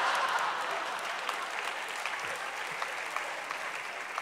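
Audience applauding, the clapping strongest at first and slowly dying down.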